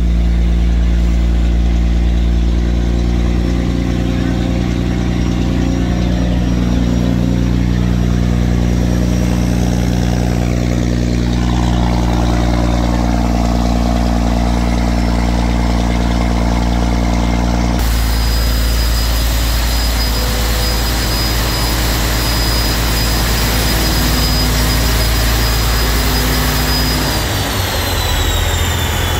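Engines of a three-engine barge running steadily on a test run. About two-thirds of the way through, the sound changes abruptly and a high steady whine comes in. Near the end the whine falls in pitch as the engine note drops.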